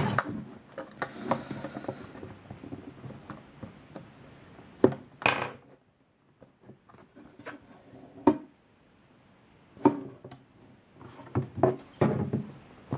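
Plastic and cardboard packaging being worked open by hand: scattered clicks and knocks, the loudest about five seconds in, with rustling toward the end.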